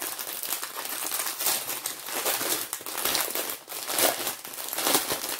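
Plastic packaging crinkling as a bundle of small bags of diamond-painting drills, wrapped in clear plastic, is handled and turned over in the hands, with irregular crackles throughout.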